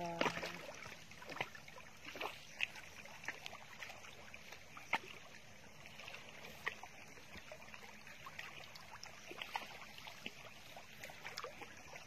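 Faint steady wash of water with scattered sharp clicks and ticks, and a brief bit of voice right at the start.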